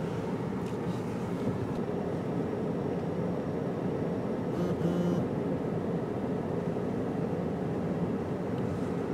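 Steady low hum of a car's engine and road noise heard inside the closed cabin, with a short, slightly louder sound about five seconds in.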